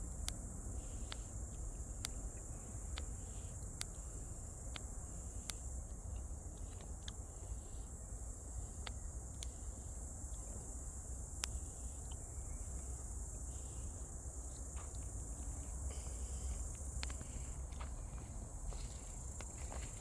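Wood campfire crackling, with sharp pops scattered irregularly about once a second, over a steady high chirring of insects.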